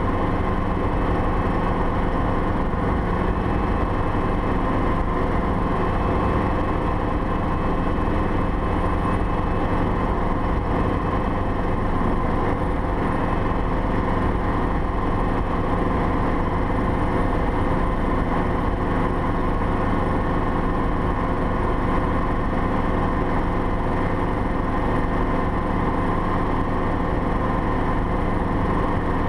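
Schweizer 300CB helicopter in flight, heard from inside its door-off cabin: the four-cylinder Lycoming piston engine and rotors drone steadily, with several held tones over a rushing noise.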